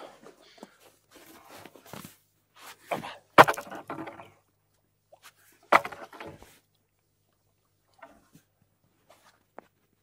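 Boots tramping and crunching through deep snow, with a few dull knocks from a wooden stick being handled. The loudest knocks come about three and a half and six seconds in.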